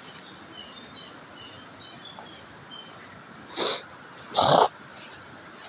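Two short, loud animal calls less than a second apart, a little past halfway, over a steady high insect buzz.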